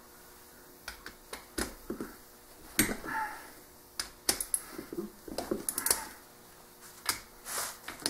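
Irregular metal clicks, clinks and knocks of a wrench and small parts being handled against an aluminium engine crankcase, with some rustling in between.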